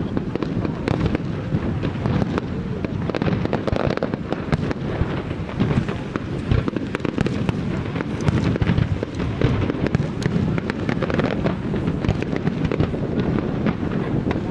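A fireworks display going off continuously: a dense barrage of aerial shells bursting and crackling, the bangs overlapping with no pause.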